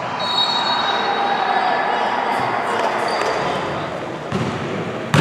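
Basketball being played on an indoor hardwood court: sneakers squeaking on the floor and the ball bouncing a couple of times near the end, over the hall's echoing background noise.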